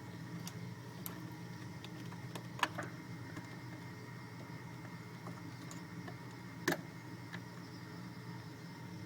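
Light clicks and taps of cables and small plastic connectors being handled inside a server case, with two sharper clicks about two and a half seconds and near seven seconds in, over a steady low hum.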